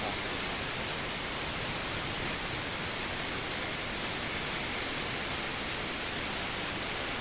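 Tenya CUT50 plasma cutter cutting stainless steel: the plasma arc and air jet give a steady, unbroken hiss as the tilted torch pierces and cuts out a hole in the plate.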